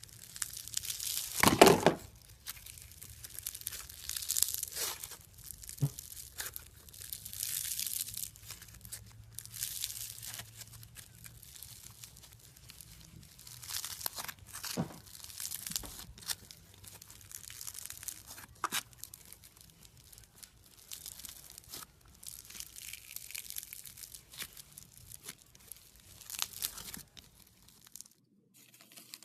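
Slime being squished, stretched and pulled apart by hand: irregular crackling, crinkling clicks and pops, loudest about one and a half seconds in.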